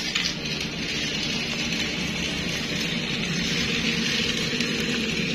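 Battery-powered toy train running steadily on plastic track: a small electric motor whirring while the wheels run along the rails. A brief clatter of clicks comes right at the start.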